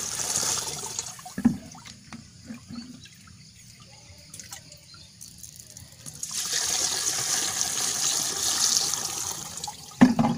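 Water poured from a bucket into a plastic knapsack sprayer tank through its strainer basket, splashing into the liquid inside. The pour eases off about a second in, with a few knocks, then comes back strongly about six seconds in and stops near the end with a knock.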